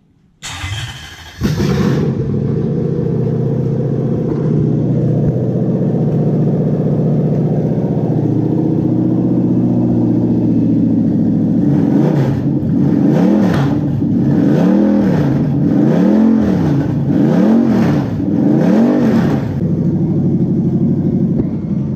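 Toyota 1UZ-FE V8 engine cranking briefly and catching about a second in, then running steadily at idle. Past the halfway point the throttle is blipped several times in a row, the revs rising and falling about once every second and a half. The engine has a known valve problem in one cylinder.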